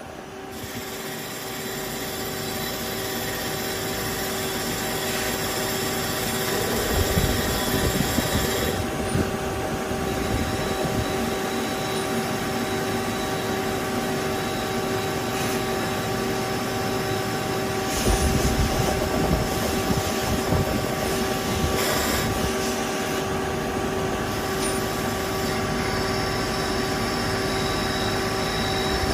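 Multi-tasking CNC lathe running through a machining cycle on a metal part: a steady machine hum and whine that builds up over the first few seconds, with a few short, louder, noisier stretches.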